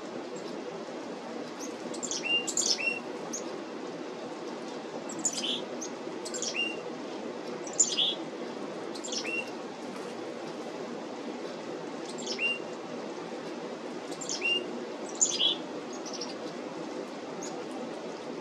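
Black-capped chickadees calling: short, high notes that sweep downward, in small clusters every second or two, over a steady low hiss.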